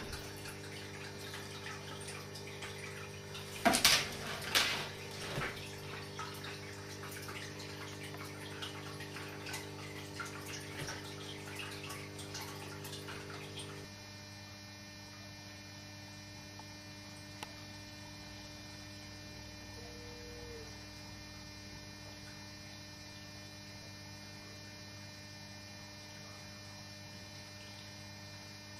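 Steady electrical mains hum made of several low tones, with a short cluster of knocks about four seconds in. The hum changes slightly and drops a little in level about halfway through.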